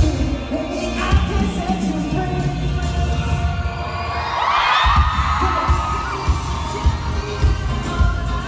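Live pop concert music over an arena sound system, heard from among the audience: a deep repeated bass beat under held synth tones. About halfway through, a burst of high crowd screaming rises over it.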